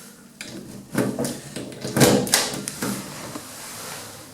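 Passenger lift car setting off downward: a series of clunks and rattles, loudest about two seconds in, settling into a steady running noise as the car travels.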